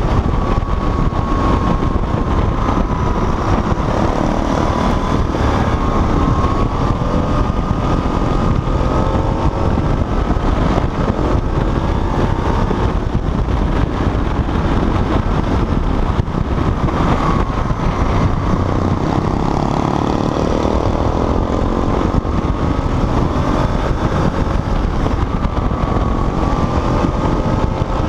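Motorcycle engine running under way, its pitch rising and falling with the revs, under heavy wind rush on the onboard microphone.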